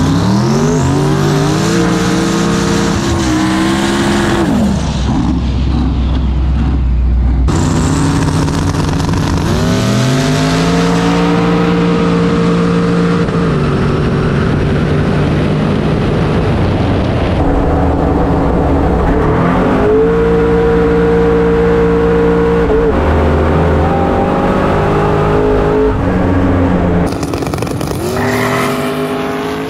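Drag car engine at full throttle, heard from a camera mounted on the car: the engine note climbs through the gears several times over, with hard cuts between runs.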